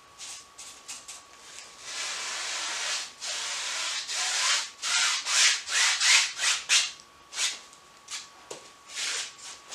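Wide flat paintbrush scrubbing across a canvas wet with oil paint, blending a sky: a continuous scrubbing for a few seconds, then a run of short separate strokes, about two a second.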